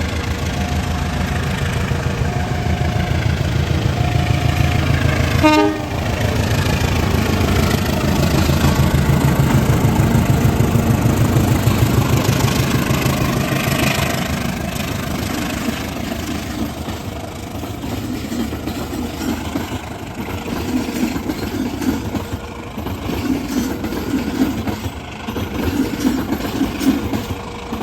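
Train passing close by: heavy engine rumble and rolling wheels, loudest about ten seconds in and then easing off, with the train's horn sounding.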